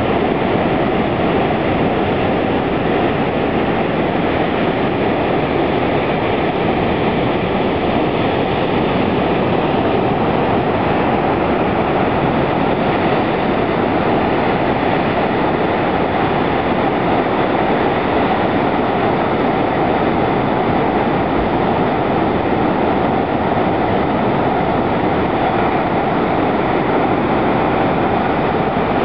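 Heavy ocean surf breaking and churning against rocks, a loud, steady rush of water.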